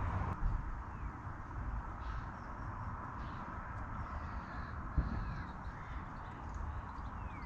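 A few short, falling bird calls over a steady low outdoor rumble, with a single sharp thump about five seconds in.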